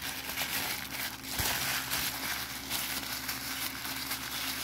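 Thin white paper wrapping crinkling and rustling as hands unwrap a small plastic model part from it, a continuous rough crackle with irregular crinkles.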